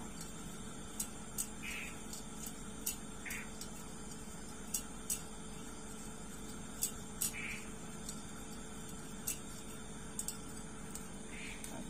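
Light irregular plastic clicks and ticks from fishing line being hand-wound from one spool onto another, with a few short squeaks, over a steady low hum.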